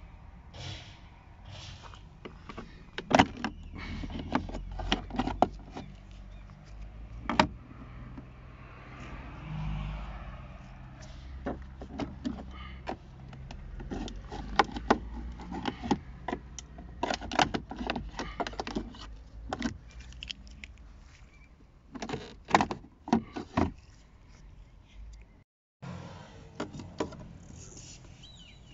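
Plastic trim clips on a VW Passat B6 door panel clicking and snapping as the armrest and window-switch trim is pried off with a plastic trim tool, amid scraping and rustling of plastic. The clicks come irregularly, some much louder than others.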